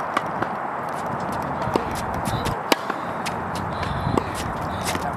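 Tennis balls struck with rackets and bouncing on a hard court: sharp pops and knocks at irregular intervals, the loudest a little under three seconds in, over a steady background hiss.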